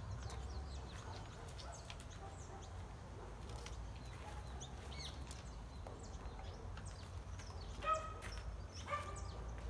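Outdoor garden ambience: small birds chirping throughout over a low steady rumble, with two short, louder animal calls near the end, about a second apart.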